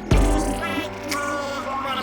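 Electronic dance music, with a heavy bass hit just after the start followed by held synth notes.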